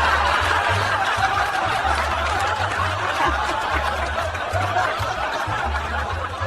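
Continuous laughter: snickering and chuckling at the parrot's joke, over a low pulsing hum.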